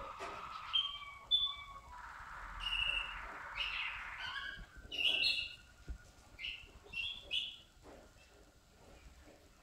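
Malinois (Waterslager) song canary singing: a long low note held for the first few seconds, then short, bright phrases of notes, growing fainter after about eight seconds.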